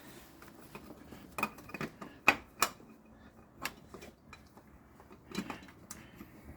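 Scattered sharp clinks and knocks of hard objects being handled, about six over several seconds, the loudest about two seconds in.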